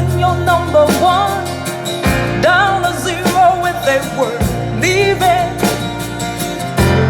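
A song played back over a hi-fi system: a wavering sung melody over sustained bass notes that change about every two seconds.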